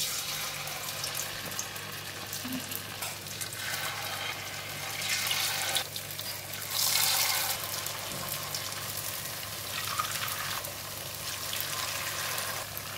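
Tempura-battered bitter gourd slices sizzling as they deep-fry in hot oil, flaring louder several times as more slices go into the pan.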